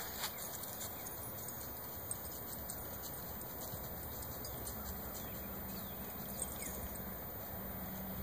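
Footsteps on dry fallen leaves: scattered light rustles and clicks over a steady outdoor background.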